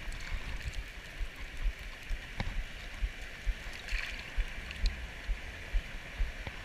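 Shallow stream water running and rippling close to the microphone, with scattered low bumps and a brief splash about four seconds in as a dip net full of smelt is lowered back into the water.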